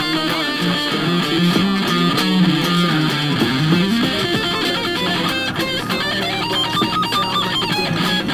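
Electric guitar playing a lead solo of quick single-note runs that step up and down, played high on the neck.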